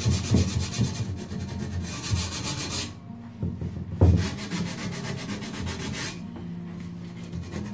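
Hand rubbing or sanding on the wooden clock case, in stretches of rasping strokes with short pauses, and a single sharp knock on the wood about four seconds in.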